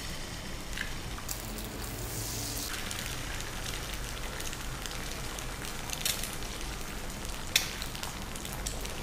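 Chicken frying in olive oil in a pan: a steady sizzle with scattered crackling pops, one sharp pop near the end.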